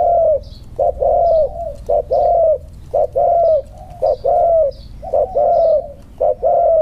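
Spotted dove cooing: each phrase is a short note followed by a longer, arched coo, repeated about once a second, about seven times. Faint high chirps sound between the coos.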